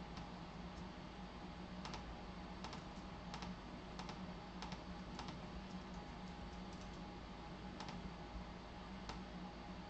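Faint, irregular light clicks, about a dozen, over a steady low hum.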